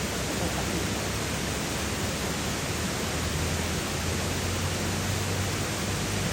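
Steady rushing water of a waterfall stream, an even, unbroken noise.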